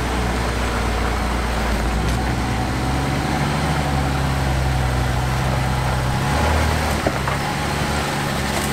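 Jeep Gladiator's engine running low and steady as the truck crawls slowly over a granite rock wall, its note shifting slightly a few times with small changes in throttle.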